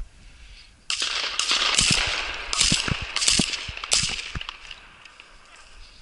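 A string of shotgun shots during a partridge hunt: a sudden report about a second in, then several more in quick succession over the next three seconds, fading out by about five seconds.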